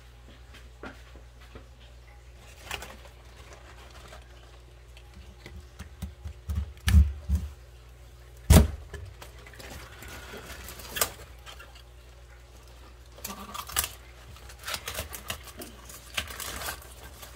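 A knife cutting through thick collard stalks at the plastic lid of a bucket, with leaf and handling rustles, scattered clicks, and two dull knocks about seven and eight and a half seconds in. A steady low hum runs underneath.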